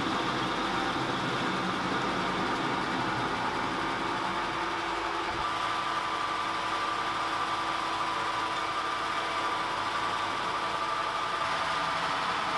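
A machine tool's motor and drive running steadily, with a small change in its tones about five seconds in.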